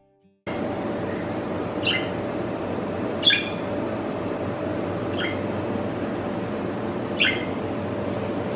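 Budgie (budgerigar) giving four short, sharp chirps about every two seconds over a steady background hum.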